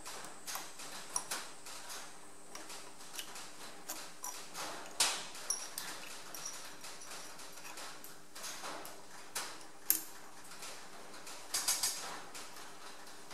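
Scattered metal clicks and light knocks of a drill bit being fitted and tightened in a milling machine's drill chuck and the workpiece being handled in the machine vise, with a quick cluster of clicks near the end.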